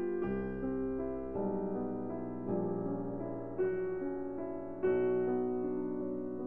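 Slow background piano music: soft chords struck about once a second, each left to ring and fade before the next.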